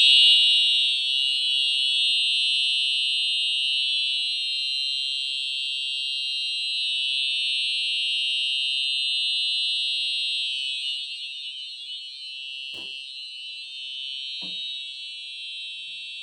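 Simplex TrueAlert horn-strobes of a fire alarm system sounding in one steady, unbroken tone, with the panel coded for continuous sounding rather than a pulsed pattern. Two faint knocks come near the end.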